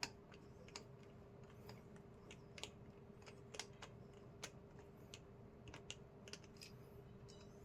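Faint, irregular small clicks of a screwdriver tightening a terminal screw on a duplex wall switch, over a faint steady hum.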